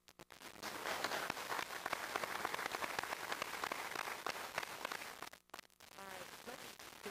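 Audience applauding in a council chamber for about five seconds, dying away, followed by people talking near the end.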